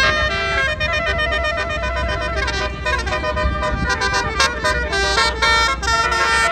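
A bus's Basuri telolet horn, a multi-tone musical air horn, playing a quick melody of shifting notes, over a steady low rumble.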